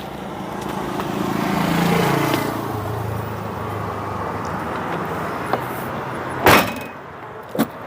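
A vehicle engine running with a low hum that swells about two seconds in, then settles and holds steady. Two sharp knocks come near the end.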